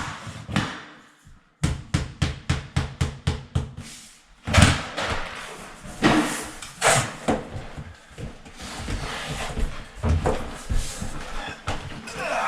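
Vinyl flooring planks being knocked into place: a quick run of even taps, about four a second, then heavier, irregular thuds and scuffs.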